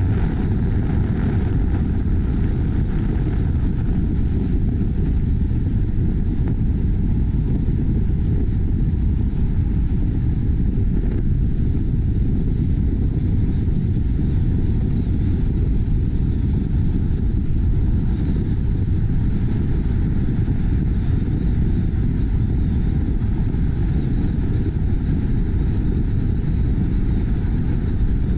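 Steady low rumble of a moving car: road and wind noise, with no distinct events.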